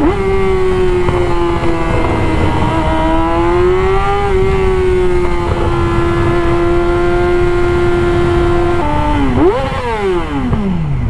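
Yamaha R6 inline-four sport-bike engine running at steady revs under way, with wind noise. About nine seconds in, the revs dip, there is a sharp throttle blip of a rev-matched downshift, and then the revs fall away quickly near the end.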